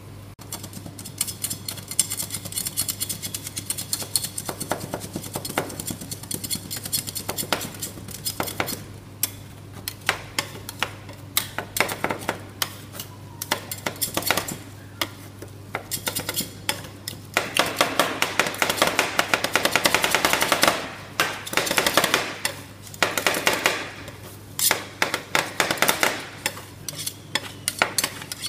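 Metal spatulas chopping ice cream mix on a stainless-steel cold plate for rolled ice cream: rapid metal-on-metal tapping and scraping, with a long run of fast strikes about two-thirds of the way through. A steady low hum runs underneath.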